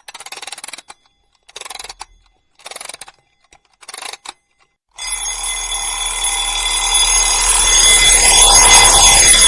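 Bell-like ringing: four short bursts about a second apart, then from about halfway a continuous ringing with many steady tones that grows louder.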